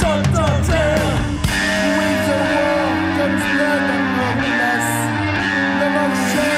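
Noise pop band recording: electric guitars over bass and drums. About a second and a half in, the playing shifts from sliding guitar lines to a denser run of held chords.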